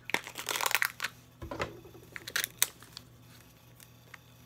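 Serrated knife cutting through a toy capsule's plastic wrap, crinkling for about a second, then a few sharp plastic clicks and taps as the capsule is opened.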